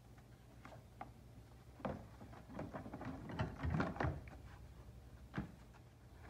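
Plastic air filter box of a Toyota Sienna being unclipped and worked loose from the engine bay by hand: scattered clicks and knocks, a stretch of plastic clatter and rattling around the middle, and one sharp knock near the end.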